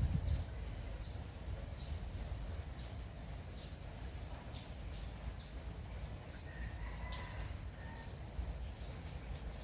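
Steady light rain with small birds chirping in short, regularly repeated notes, and a rooster crowing faintly once, about six and a half seconds in.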